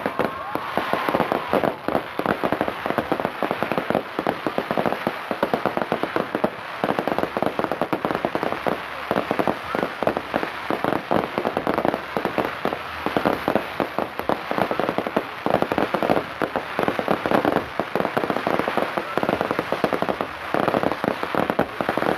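Daylight fireworks going off in rapid succession: a dense, unbroken crackle of many small bangs.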